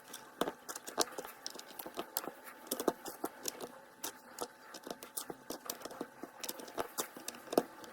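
Plastic Lego bricks clicking and tapping as they are handled, in an irregular run of sharp small clicks.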